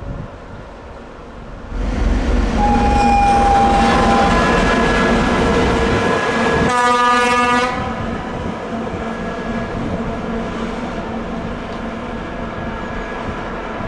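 ChME3 diesel shunting locomotive running light, its six-cylinder diesel engine heard close and loud from about two seconds in. About halfway through there is a horn blast of about a second, after which the engine runs on steadily, a little quieter.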